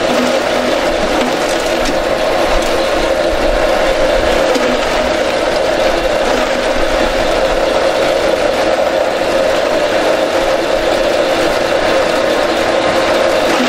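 AGR-CH250 multipurpose grass chopper running at a steady speed, its blades cutting vegetables and throwing the pieces into a plastic bag. It makes a loud, even mechanical hum that does not change.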